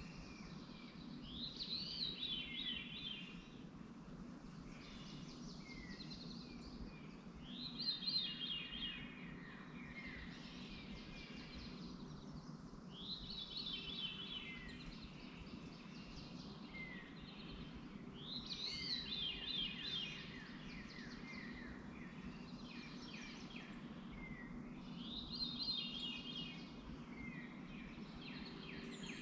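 A songbird repeating the same song phrase five times, about every five to six seconds: a quick run of notes falling from high to lower pitch, with short chirps between phrases. A steady low hum runs underneath.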